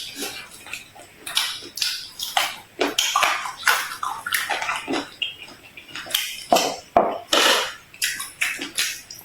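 Close-miked eating sounds: irregular crunches, chews and wet mouth sounds a few times a second, as of biting and chewing crisp food.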